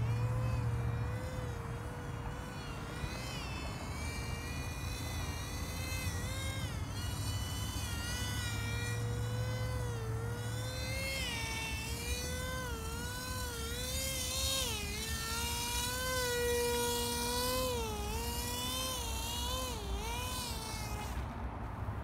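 Small brushless electric motor and propeller of an RC paramotor (DX2205 2300KV) whining in flight, its pitch rising and falling over and over, then stopping about a second before the end.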